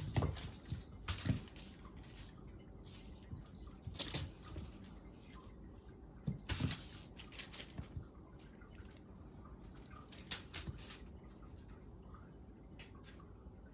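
Cats playing with a cat teaser toy: irregular light taps, scuffles and rustles of paws and toy on the floor, in a few short flurries with quieter stretches between.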